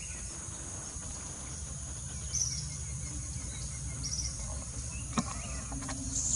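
Steady high-pitched insect buzzing over a low background rumble, with a few short high bird chirps about two and a half and four seconds in, and a sharp click a little after five seconds.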